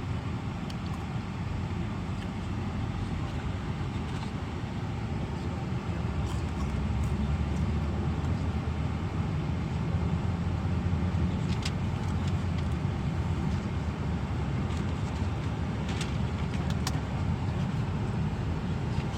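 Car cabin noise while driving: a steady low rumble from the engine and tyres that grows a little louder partway through, with a few light clicks in the second half.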